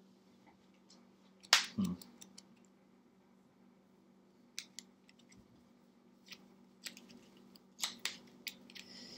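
Sparse sharp clicks and taps of Magic: The Gathering cards being handled, tapped and laid down on the playmats, the loudest about one and a half seconds in and a scatter of lighter ones later, over a faint steady hum.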